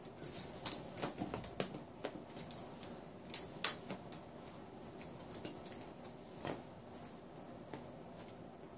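Scattered light clicks and taps, thickest in the first four seconds, with the sharpest single click about three and a half seconds in and a few more spaced out after.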